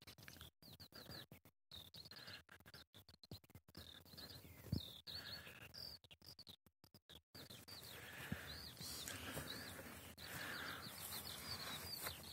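Faint birdsong: a long run of short, high chirps repeated over and over. The sound cuts out briefly several times in the first half.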